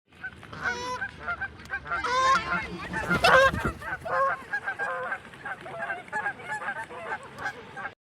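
A flock of waterfowl calling: many short calls overlapping one another, loudest about three seconds in.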